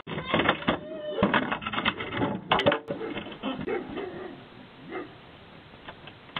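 A wooden porch pillar being wrenched loose by a leashed dog and falling: a run of knocks, creaks and clattering, with a sharp crack about two and a half seconds in, then quieter.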